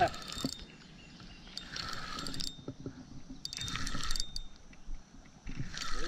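Fishing reel whirring and clicking in three short spurts as a hooked bass is played in.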